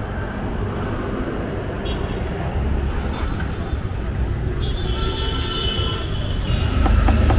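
Steady street traffic noise, with a low engine rumble that grows louder near the end.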